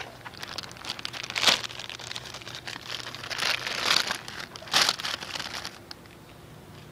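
English Mastiff's muzzle snuffling and rubbing right against the phone's microphone: irregular rustling, crinkly bursts, loudest in the middle, that die down near the end.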